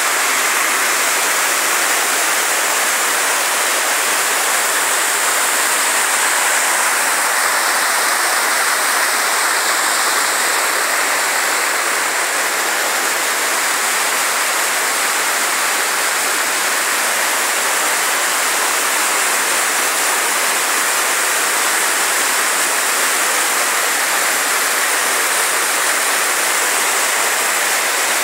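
A waterfall's white water rushes down sloping rock ledges, a steady, loud rush of water.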